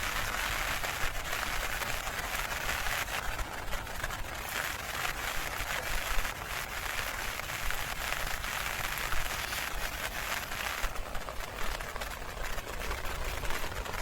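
Heavy rain falling: a steady hiss dotted with many small drop impacts.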